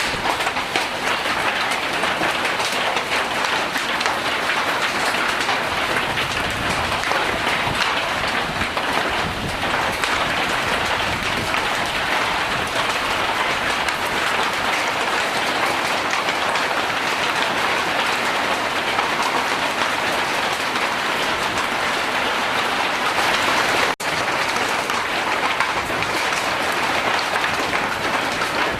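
Hail and heavy rain pelting down in a hailstorm: a loud, steady din of countless small impacts, with a split-second dropout near the end.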